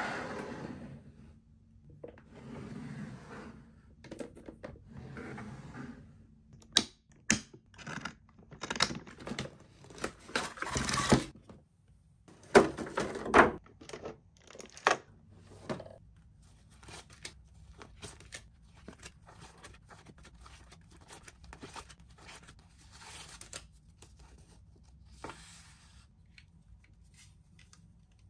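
Toy packaging being handled and opened by hand: tearing and crinkling with many sharp clicks and knocks, busiest from about six to sixteen seconds in.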